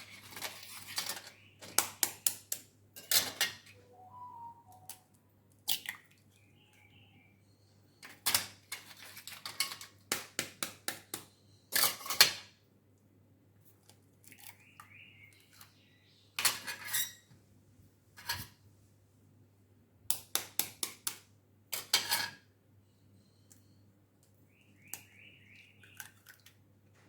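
Eggs being knocked and cracked against the rim of a bowl, one after another: clusters of sharp taps and clinks with short pauses between.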